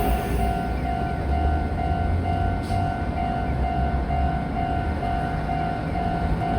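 Japanese level-crossing warning bell ringing steadily at about two strokes a second, over the low rumble of a Meitetsu train at the crossing.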